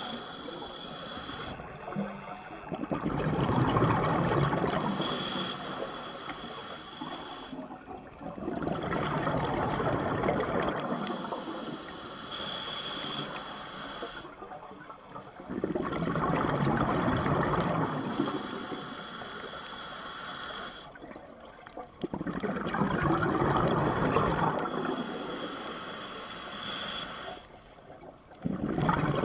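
Scuba diver breathing through a regulator underwater: four long rushes of exhaled bubbles, each lasting several seconds, separated by short quiet pauses.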